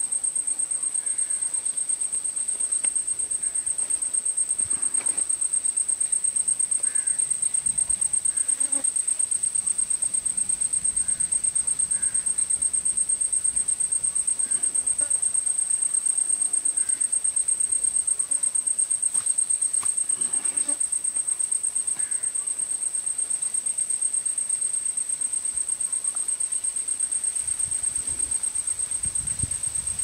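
An insect trilling steadily on one high pitch, pulsing rapidly and evenly.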